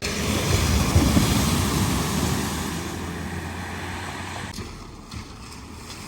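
A car driving through a flooded ford, its wheels throwing up spray and water rushing around it over the low sound of the engine. The splash is loudest in the first two seconds, then eases as the car moves on.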